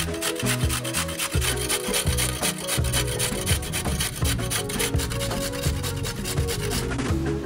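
Fast, rhythmic scraping on wood, food being worked on a wooden cutting board, over background music; the scraping stops near the end.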